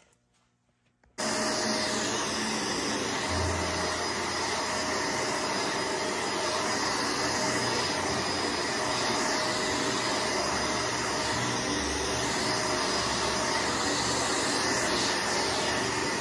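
Vacuum cleaner switched on about a second in, then running steadily with a constant whine.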